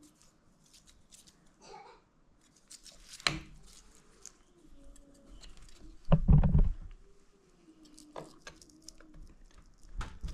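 Metal engine parts and hand tools being handled on a workbench: scattered light clicks, a sharp knock about three seconds in, and a louder clattering knock around six seconds in.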